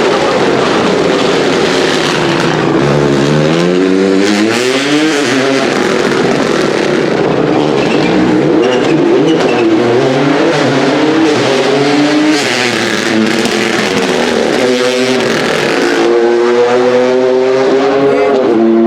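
Rally car engine under hard acceleration. The revs climb steeply and fall back at each gear change, with a long climb about two to five seconds in, then run high and steady near the end.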